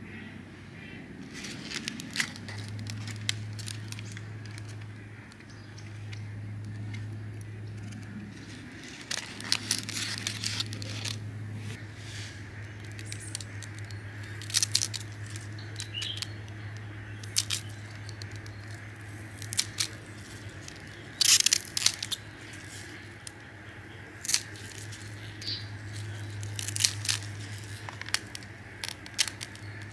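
Kitchen scissors snipping through green onion shoots, a sharp crisp crunch at each cut, coming at irregular intervals, with leaves rustling between cuts. A low steady hum runs underneath.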